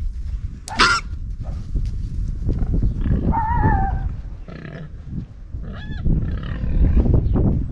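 Pigs grunting, with several short, high squeals: one sharp squeal about a second in and a wavering one around three seconds in.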